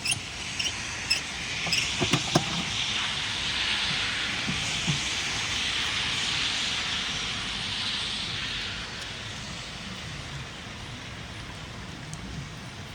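A steady hiss that swells about two seconds in and fades out around nine seconds, with a few sharp clicks near the start.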